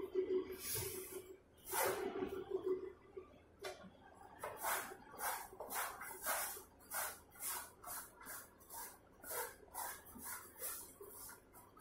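Hands kneading stiff gathiya dough in a steel basin: repeated squishing, pressing strokes, about two to three a second, coming steadily from about four seconds in.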